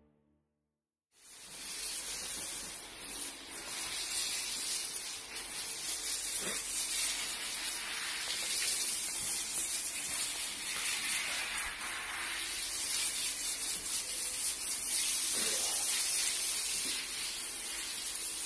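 Water from a hose spraying onto a horse being washed down: a steady hiss that begins about a second in.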